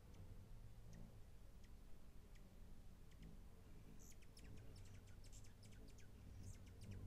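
Hummingbirds giving faint, high, dry chip notes: single ticks about every two-thirds of a second, then a quick run of sharp chittering clicks over the last three seconds as a second hummingbird comes to the feeder.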